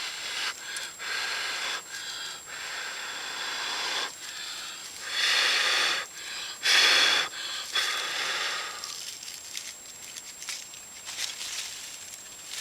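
A person blowing repeatedly into a leaf tinder bundle to coax a char-cloth ember into flame, a series of breathy blows with two longer, louder ones about five and seven seconds in.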